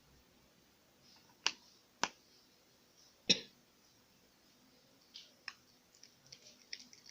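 Slime being squeezed and pressed by hand, giving three sharp pops (the third the loudest), then a run of smaller, quicker crackling clicks near the end.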